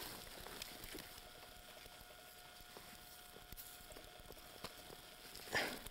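Quiet ambience: a faint even hiss and a thin steady hum, with scattered light ticks and rustles. A brief breathy sound comes near the end.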